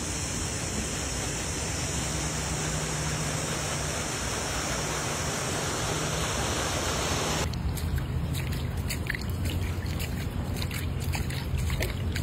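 Steady rushing of floodwater as a van pushes through water covering the street. About seven and a half seconds in it changes abruptly to a quieter wash of water with scattered small splashes and taps.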